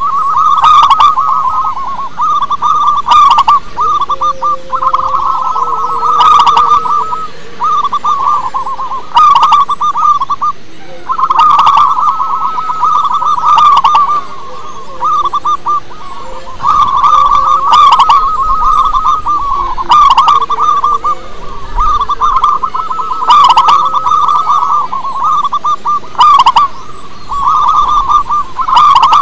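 Zebra dove (perkutut) singing: rapid, trilled cooing phrases, one after another with short breaks.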